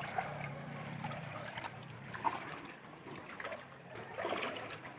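Floodwater sloshing and trickling in small irregular splashes as people wade through it.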